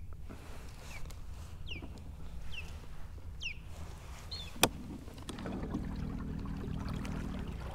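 Light water lapping around a kayak, with a few faint, high, falling chirps, a single sharp click about four and a half seconds in, and a low steady hum that starts about five seconds in.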